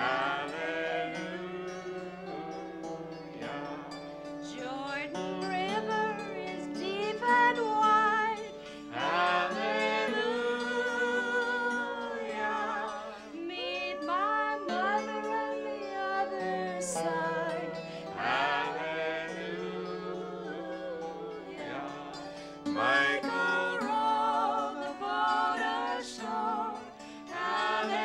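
Group of voices singing a folk-style song to the accompaniment of a psaltery, its strings struck in a ringing, steady rhythm.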